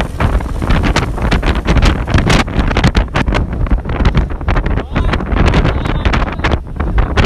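Wind buffeting the microphone: a loud, irregular rumble with uneven gusts.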